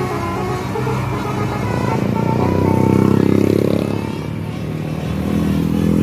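A bus's multi-tone telolet horn sounding a tune of held notes that step in pitch. About halfway through, a vehicle engine rises and falls in pitch as it passes close, the loudest part. A steady low engine drone follows near the end.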